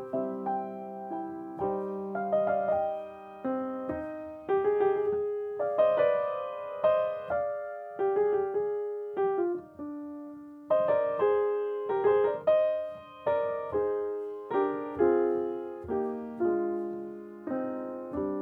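Solo piano music: chords and melody notes struck one after another, each note dying away before the next.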